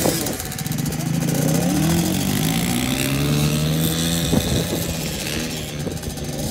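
Small youth dirt bike engine revving as the bike pulls away, climbing in pitch over the first couple of seconds and then running steadily, growing a little fainter near the end. A brief sharp click a little after four seconds in.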